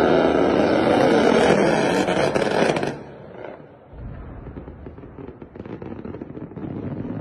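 C-RAM close-in weapon system (a 20 mm six-barrel Gatling cannon) firing one long burst at its very high rate, heard as a continuous buzzing roar that cuts off about three seconds in. Quieter, irregular noise follows.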